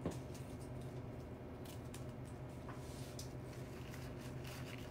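Faint rustling and crackling of fresh flower stems and leaves being handled, as a bells of Ireland stem is stripped and pushed into the arrangement, with a sharp click right at the start. A steady low hum runs underneath.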